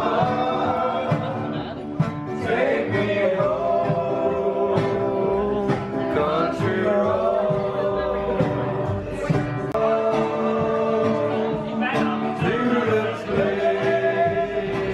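Live acoustic band playing a country-style song: a singer holding long notes over guitar and double bass.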